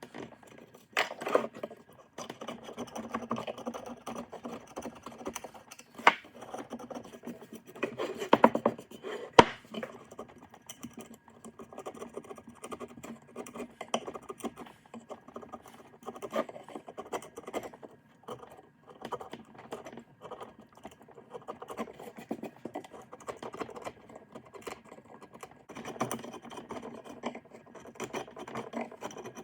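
Irregular scraping and rubbing with many small clicks, broken by a few sharp knocks, the loudest about six and nine seconds in.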